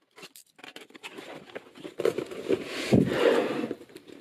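Small clicks and snips as the seal stickers on a cardboard keyboard box are cut, then the box being opened, with loud rustling of cardboard and packaging for a couple of seconds.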